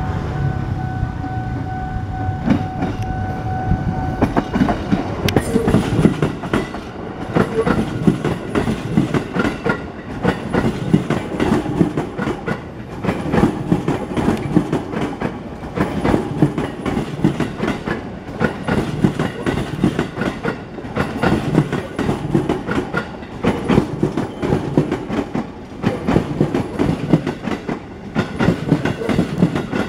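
JR 205 series electric commuter train passing close by: a held horn note for the first four seconds, then the steady rhythmic clickety-clack of its wheels over the rail joints as the long train rolls past.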